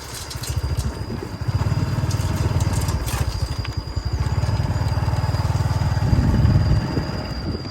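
Small motorcycle engine running under way, with a rapid low putter that swells as the throttle opens and eases, loudest a little after six seconds in. A faint steady high whine runs beneath it.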